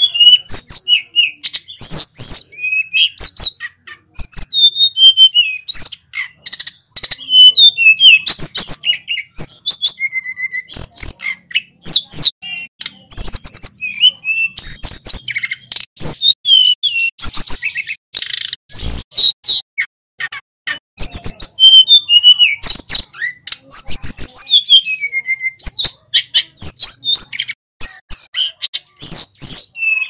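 Male hill blue flycatcher (sulingan gunung) singing a loud, rapid, unbroken stream of varied high whistles, slurred notes and short trills.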